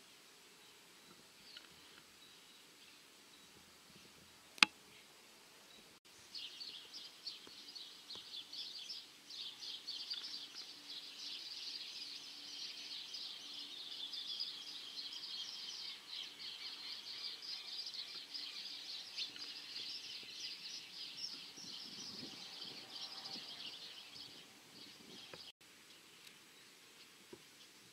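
Many birds chattering in a dense, high-pitched chorus that starts abruptly about six seconds in and cuts off suddenly near the end. Before it, a single sharp click.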